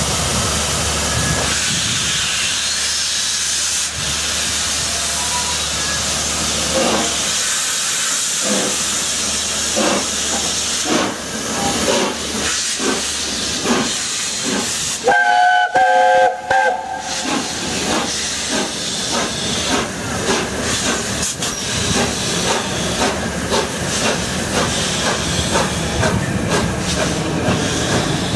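LNER Peppercorn A1 Pacific 60163 Tornado's three-cylinder steam locomotive starting away. A steady hiss of escaping steam gives way to slow exhaust chuffs that quicken as the train gathers speed. A whistle blast with several notes sounds about halfway through.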